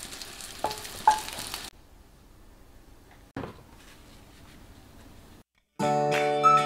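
Two light clinks of chopsticks against a dish over a faint sizzle of frying, then near-quiet with one more small click; background music with a flute melody starts near the end.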